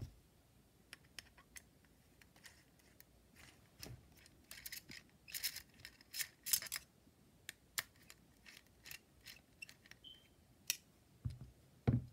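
Small metallic clicks and ticks as a hex key works a bolt in an electric-skateboard motor mount and the loose hardware is handled, busiest in the middle.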